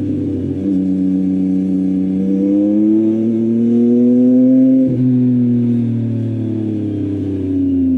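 Yamaha MT-09's three-cylinder engine through an Akrapovic full-system exhaust, pulling up in pitch under throttle for a few seconds, then breaking off sharply about halfway through and falling steadily as the bike slows.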